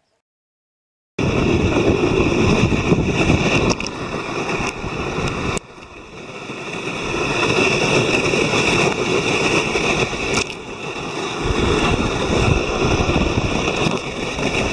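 A sled sliding over snow as a dog pulls it, a loud, steady scraping hiss with wind on the microphone. It starts abruptly about a second in, drops sharply about halfway through, then builds back up.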